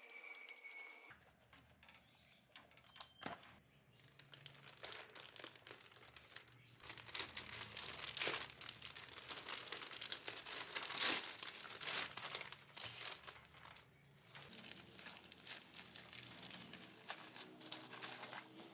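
Crinkling and rustling of something being handled: a dense run of small crackles, busiest in the middle.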